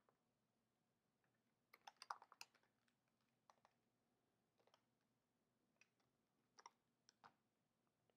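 Faint computer keyboard keystrokes: a quick run of several taps about two seconds in, then single clicks spread out over the rest.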